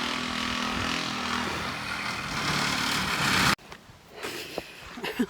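A steady engine-like running noise with a low hum, cut off abruptly about three and a half seconds in; after it, only a few faint clicks.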